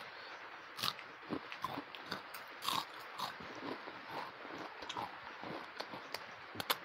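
Close-miked chewing and lip-smacking of a person eating a mouthful of rice by hand, with irregular short clicks and small wet sounds.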